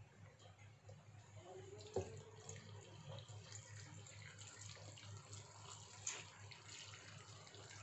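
Faint splashing of water poured from a plastic scoop into an enamel pot packed with cut vegetables, with a sharp knock about two seconds in and a steady low hum underneath.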